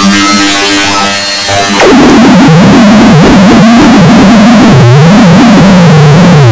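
Very loud, heavily distorted synthesizer-like electronic audio. For the first two seconds it holds steady pitched tones, then it turns into a harsh, clipped noise whose pitch wobbles up and down.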